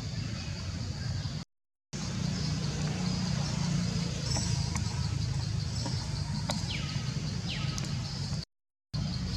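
Forest ambience: a steady low rumble under a constant high drone of insects, with two short falling bird chirps about six and a half and seven and a half seconds in. The sound cuts out completely twice for about half a second, once near two seconds in and once near the end.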